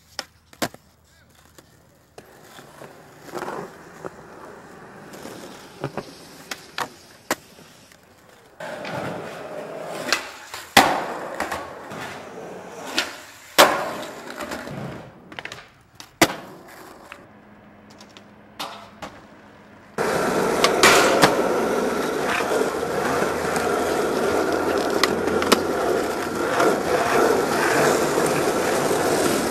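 Skateboard wheels rolling on concrete, with many sharp clacks of the board striking the ground as tricks are popped and landed. About two-thirds through, the rolling jumps louder and stays a steady, gritty rumble.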